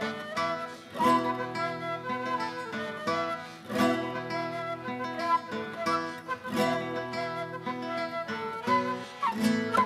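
Instrumental passage for nylon-string classical guitar, transverse flute and accordion: guitar chords struck about every second and a half under a flute melody, with held accordion chords beneath.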